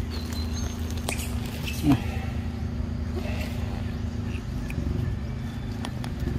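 A short call falling in pitch about two seconds in, over a steady low hum, with a few sharp clicks.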